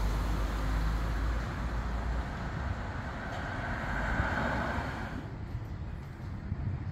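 Street traffic: a steady low rumble of motor vehicles. A passing vehicle's noise swells about three seconds in and fades away by about five seconds.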